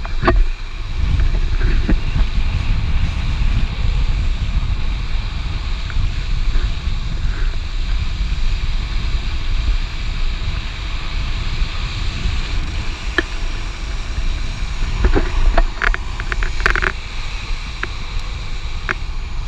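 Wind rushing over a board-mounted camera's microphone and longboard wheels rolling on asphalt at downhill speed, with a few sharp clicks in the last few seconds.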